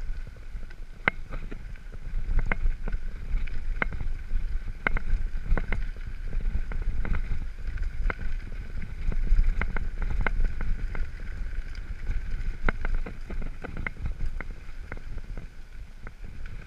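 Mountain bike rolling over a rough dirt and gravel track: a constant wind rumble on the microphone with frequent, irregular sharp rattles and knocks as the bike jolts over bumps.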